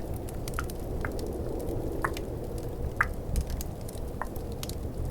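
About five wet tongue clicks, roughly a second apart, made close to the microphone. They sit over a steady low rush of snowstorm wind and the fine crackle of a fireplace.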